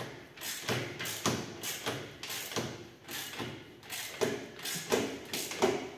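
Socket ratchet wrench clicking in short strokes, about two a second and unevenly spaced, as the nuts on the new steel engine-mount stud bolts of a 50cc cub motorcycle are tightened.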